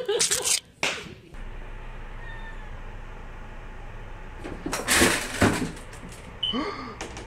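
Two domestic cats in a short spat: a sudden burst of noise about five seconds in, followed by a brief yowl. A loud noisy burst opens the first second.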